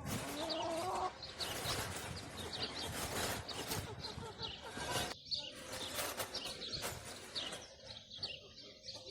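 Birds calling: a short pitched call in the first second and small birds chirping throughout, over a rustling noise that eases after about five seconds.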